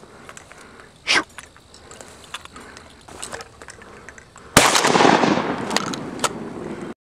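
A single shotgun blast more than halfway through, sudden and loud, its noise hanging on and fading slowly afterwards. A short, loud burst of sound comes about a second in.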